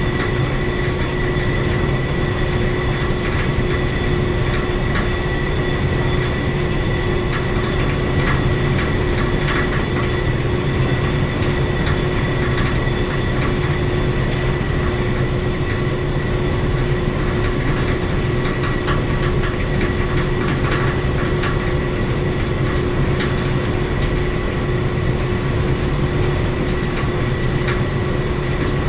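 Building mechanical-room machinery running steadily: a continuous low hum with a steady mid-pitched tone and a high whine over it. A light rattle of clicks comes and goes, busiest about a third of the way in and again about two-thirds through.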